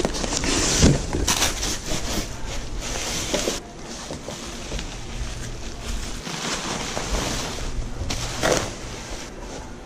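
Cardboard box and plastic bubble wrap rustling and crinkling while a new aluminium radiator is lifted out of its packaging and unwrapped, with a few sharper scrapes and knocks.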